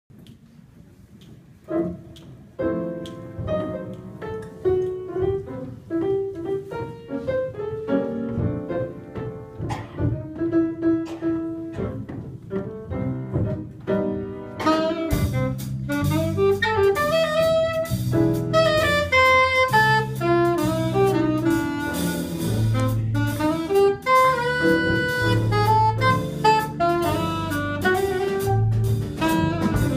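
Live small-group jazz: saxophone melody over piano, quieter at first. About halfway through, the drum kit with cymbals and a low bass line come in and the full band plays.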